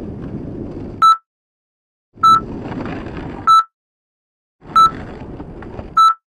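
Five short electronic beeps at a steady pace, one about every 1.2 seconds, in the manner of a hospital heart monitor, loudest thing present. Under them is the low rumble of skateboard wheels rolling on asphalt, which cuts out to total silence twice.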